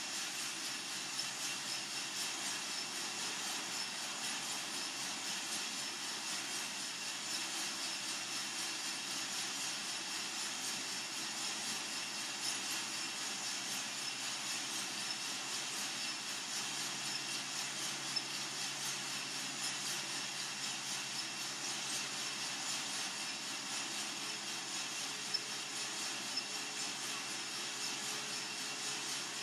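Coffee-Tech FZ-94 drum lab roaster running mid-roast: a steady rushing hiss with a low rattling rumble from the turning drum and tumbling beans. A few faint ticks stand out about halfway through and again near the end.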